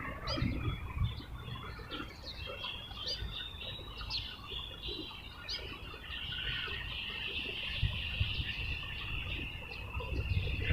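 Birds chirping in short, repeated high calls. About six seconds in, a steady high-pitched drone joins them, over a low rumble.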